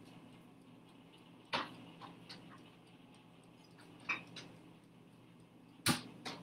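Scattered light clicks and knocks of kitchen items being handled, with sharp ones about a second and a half in, around four seconds and twice near the end. Under them runs the steady low hum of a countertop air-fryer oven running.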